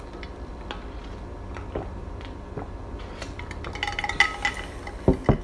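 Drinking from a Yeti stainless-steel tumbler, with small clinks and ticks. About four seconds in there is a short ringing as the tumbler is lowered to the wooden table, and a couple of soft knocks near the end.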